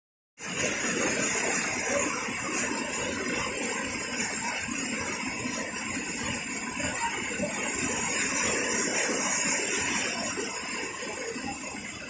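Waterfall rushing steadily, cutting in abruptly about half a second in.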